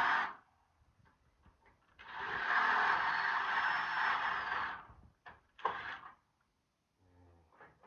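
A small power tool's motor running in a long burst of a few seconds, after a brief tail at the start, then a short burst about two seconds later.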